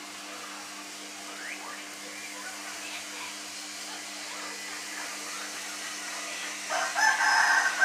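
Steady background hiss with a low hum; about a second before the end a rooster starts crowing loudly.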